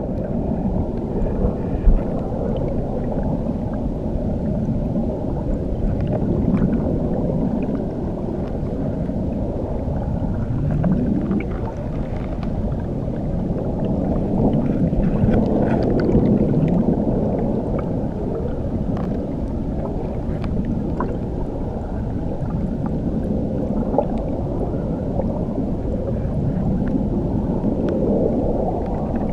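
Underwater ambience: a steady, muffled rush of water heard from below the surface, with faint bubbling clicks, a sharper click about two seconds in, and a few short low rising gurgles.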